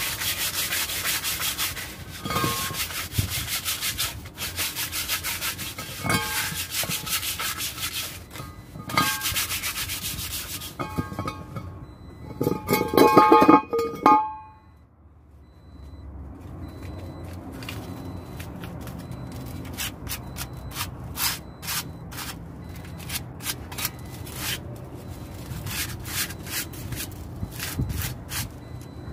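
Sandpaper rubbed hard in repeated strokes on the rear brake drum, scuffing its braking surface before the drum goes back on over new brake shoes. After about fourteen seconds it stops suddenly and gives way to quieter scratching and scattered clicks.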